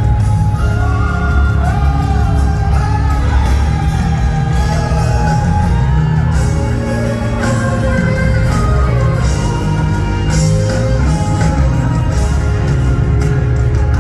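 Live gospel worship music: sung vocal lines over a heavy bass-driven backing, loud and continuous, with shouts from the room.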